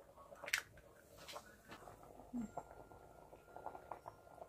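Faint clicks and taps of an egg being cracked into a small ceramic bowl and handled, with a cluster of small ticks near the end as it is tipped into a pot of simmering coconut milk.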